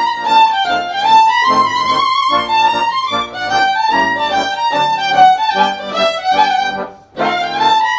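A fiddle plays a lively Hungarian folk tune, the melody sliding between notes over steady, evenly pulsing chords below. The music breaks off for a moment about seven seconds in and starts again.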